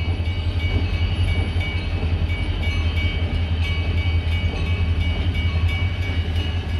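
Railroad grade-crossing warning bell ringing steadily over the low, even drone of the diesel locomotives' engines at the crossing.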